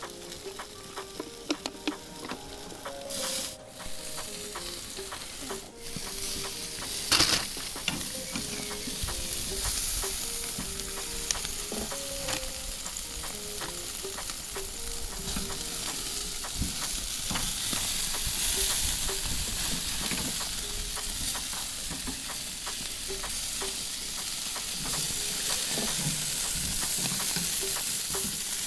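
Seasoned chicken and turkey wings sizzling as they cook. The sizzle grows louder over the first several seconds and then holds steady, with scattered clicks and knocks early on.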